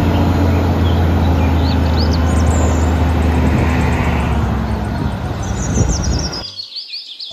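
Diesel engine of an eight-wheel tipper truck running steadily with a deep hum while its hydraulic ram raises the tipper body, with birds chirping. The engine sound cuts off about six and a half seconds in, leaving the birdsong.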